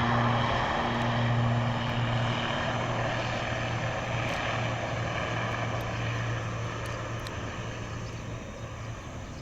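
IndiGo airliner's engines running, a steady low drone with a hiss above it that slowly fades.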